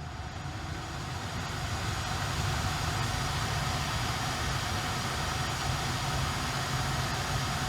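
Tesla Model Y climate-control blower pushing air through the cabin vents, rising over the first two seconds and then blowing steadily with a low hum under the rush of air.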